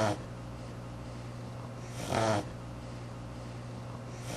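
A beagle reverse sneezing as it comes out of anaesthesia after extubation, making short, harsh gasping inhalations: one about two seconds in and another at the very end. It is a mild post-anaesthetic respiratory complication involving the soft palate.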